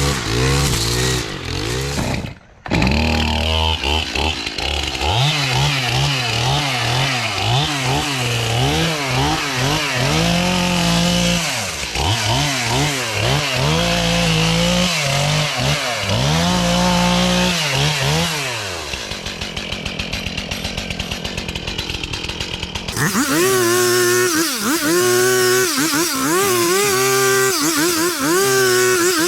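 A string trimmer (weed whacker) with a small engine cutting thick overgrown weeds. The engine is revved up and let back down over and over, its pitch rising and falling every second or two.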